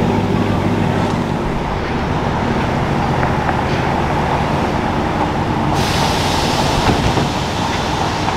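Steady road traffic and vehicle engine noise, with a low engine hum in the first second. About six seconds in the sound turns abruptly hissier.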